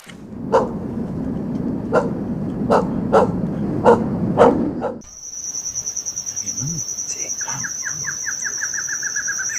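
A dog barking, about seven short barks over a low background rumble. About five seconds in, the sound changes to a steady high-pitched trill, joined by a run of quick chirps falling slightly in pitch.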